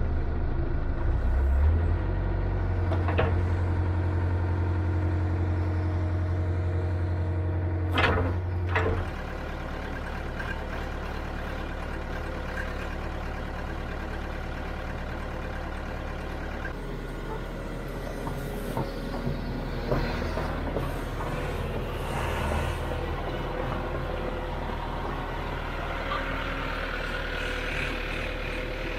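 Heavy earthmoving machine's engine running just after start-up: a steady hum, higher and louder for the first nine seconds or so, with a couple of metallic knocks, then settling to a lower, steady idle.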